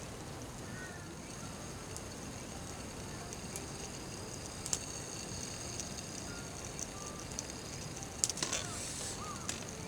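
Wood campfire crackling, with sharp pops scattered through a steady hiss and a quick run of pops a little after eight seconds. A constant high-pitched drone of summer insects runs behind it.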